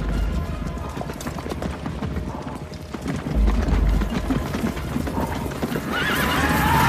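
A cavalry charge: many horses galloping, a dense clatter of hoofbeats over a deep rumble. About six seconds in, high wavering cries join.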